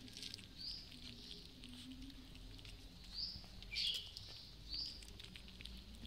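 Several kittens eating off concrete: quick, soft clicking and crunching of chewing. Short high-pitched chirps sound over it roughly once a second, the loudest just before the four-second mark.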